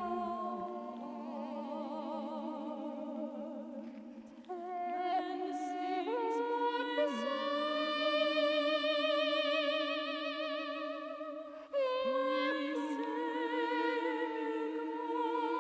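A soprano voice looped and harmonized upon itself: several long, held sung notes with vibrato sound together as a chord. The chord breaks off and a new one comes in about four seconds in and again near twelve seconds.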